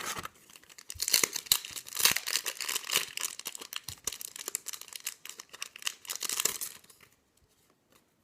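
A Yu-Gi-Oh! booster pack's foil wrapper being torn open and crinkled by hand, a dense crackling run lasting about six seconds that stops near the end.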